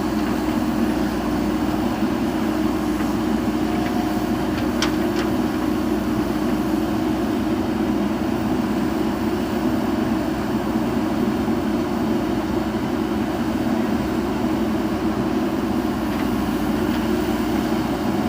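JCB backhoe loader's diesel engine running steadily, with a brief click about five seconds in.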